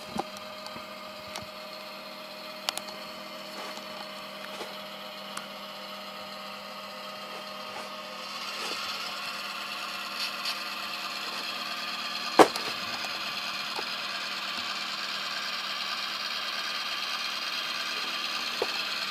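Sound decoder in a model MP15 diesel switcher playing its diesel engine sound through the locomotive's small speaker, running steadily and growing louder about eight seconds in. Light clicks throughout and one sharp knock about twelve seconds in.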